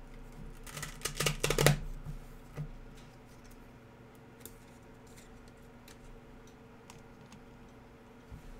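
A trading card pack wrapper crinkling as it is torn open, a crackling flurry about a second in. Faint taps and clicks of cards being handled follow.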